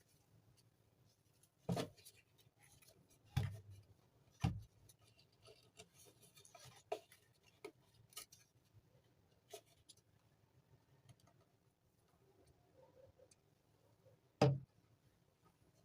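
A few scattered knocks and clicks of hard objects being handled and set down, the loudest about two, three and a half, four and a half and fourteen and a half seconds in, with quieter ticks between.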